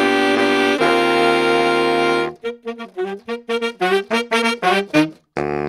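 Jazzy intro theme music led by horns: a chord held for about two seconds, then a run of short, detached notes, ending on a brief final chord that cuts off sharply.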